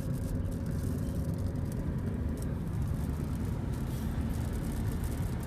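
Steady low road and engine rumble inside a moving car's cabin, with a faint hiss of air.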